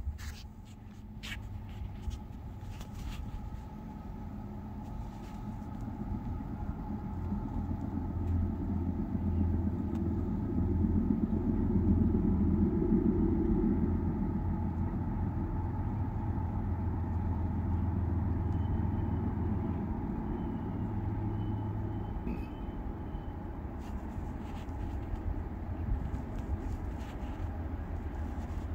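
Low, steady rumble of distant diesel freight locomotives approaching, growing louder to a peak about halfway through and then easing off a little.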